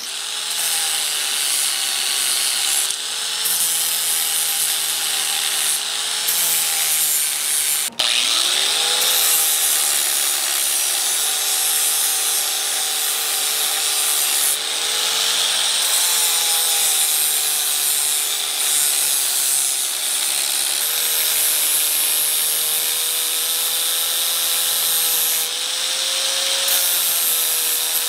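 Electric angle grinder with an abrasive disc grinding steel, a steady grinding hiss over a motor whine whose pitch wavers as the disc is worked against the metal. It breaks off for an instant about eight seconds in.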